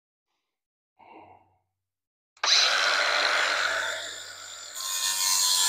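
Bauer angle grinder with a 180-grit flap disc starting up about two and a half seconds in and sanding down a billet grille, easing off for a moment before bearing down again. A faint breath comes about a second in.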